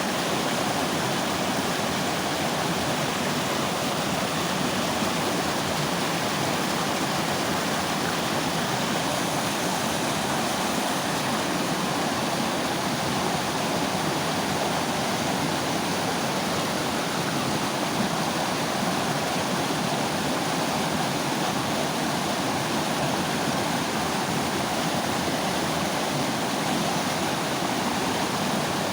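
Mountain river flowing, a steady, unbroken rushing of water.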